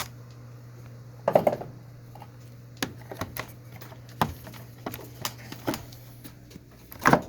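Scattered sharp clicks and knocks of handling in a pigeon loft, a dozen or so over several seconds, over a steady low hum. The loudest come about a second and a half in and near the end.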